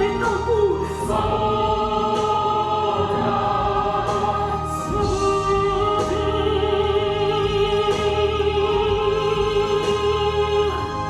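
Rock opera music: a choir singing sustained notes over band accompaniment, with one long note held steady through the second half.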